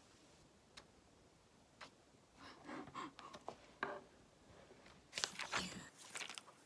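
Light clicks and taps from objects being handled, with a louder rustle about five seconds in.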